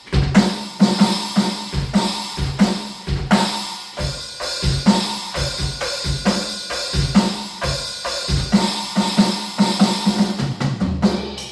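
Electronic drum kit played as a steady beat, with bass drum, snare and a China crash cymbal sound, on a user preset set up to sound like an acoustic kit. The playing stops shortly before the end.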